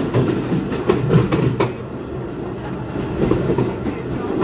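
Passenger train coach rolling along the track, heard from inside: a steady rumble with wheels clattering over the rail joints, a quick run of knocks in the first couple of seconds.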